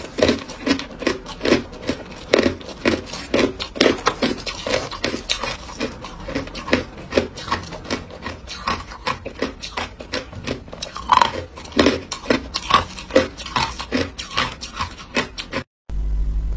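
Hard ice being crunched between the teeth, a steady run of crisp crunches at about three a second. It cuts off suddenly near the end.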